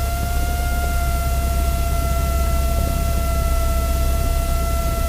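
Small propeller airplane's piston engine running at taxi power, heard in the cabin as a deep rumble and hiss, with a steady high-pitched whine held over it.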